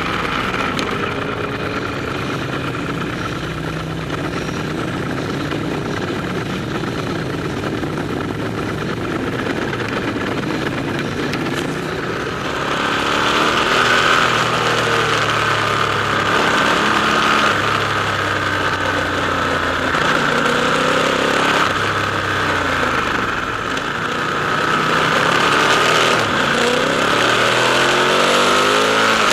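Ducati motorcycle engines running and revving in a tunnel, their pitch rising and falling as the throttle is opened and closed. The sound gets louder about halfway through, and more than one engine note can be heard crossing.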